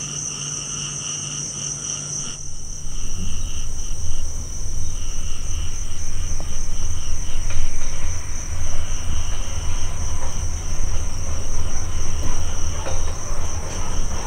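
Crickets chirping in a steady, high, pulsing drone. About two and a half seconds in, a loud low rumble comes in and becomes the loudest sound.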